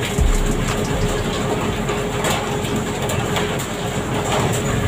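Onboard sound of a pole-and-line skipjack tuna boat: the engine running steadily under rushing water and spray, with scattered brief knocks and clatters as fish are poled aboard.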